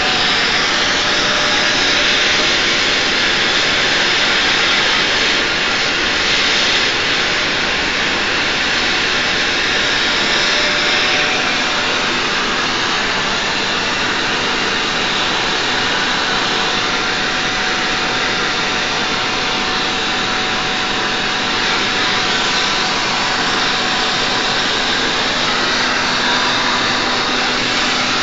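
Brazing torch flame hissing steadily while the copper coil of a chiller's heat exchanger is brazed: a continuous loud rush that stays even throughout, with a faint steady hum beneath.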